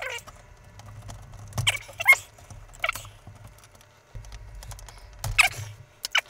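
A plastic multi-pin connector being wriggled off a circuit board with pliers: scattered small plastic clicks and several short squeaks as it rubs free.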